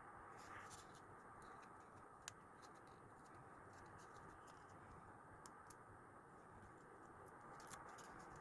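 Faint scattered clicks and light scratches of stickers and paper being handled on a desk during diary decorating, over a steady low hiss.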